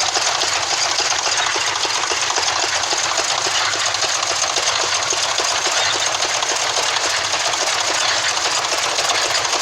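Old threshing machine running steadily, with a fast, even mechanical rattle.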